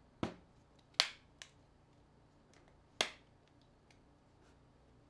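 A few sharp clicks and taps from a mobile phone being handled in the hands. One comes near the start, the loudest about a second in with a smaller one just after, and another about three seconds in.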